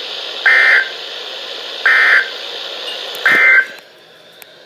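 Three short, buzzy bursts of Emergency Alert System SAME digital data tones, about a second and a half apart: the end-of-message signal that closes the warning, over steady radio hiss.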